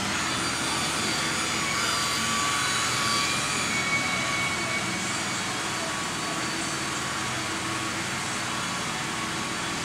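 Handheld electric polisher running steadily with its pad pressed on a painted RV side panel: a steady motor whine over a hiss.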